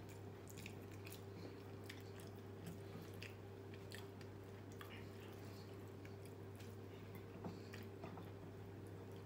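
Faint chewing and small mouth clicks of a person eating rice by hand, scattered all through, over a steady low hum.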